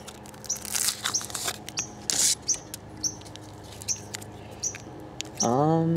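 Hands breaking a chocolate egg shell and handling the plastic toy capsule inside: short crackles and clicks. A bird chirps again and again in the background, and a brief hummed voice sounds near the end.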